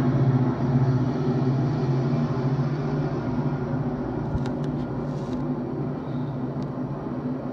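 Diesel train locomotive running with a steady low, throbbing hum that slowly gets quieter. A few sharp clicks and a short hiss come about four and a half to five seconds in.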